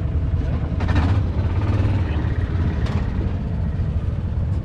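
A tractor engine idling with a steady low rumble, with a couple of short clicks.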